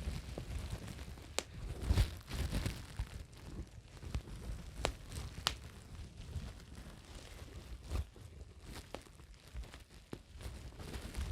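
Close-miked crinkling and rustling, broken by scattered sharp pops and clicks; the loudest burst comes about two seconds in.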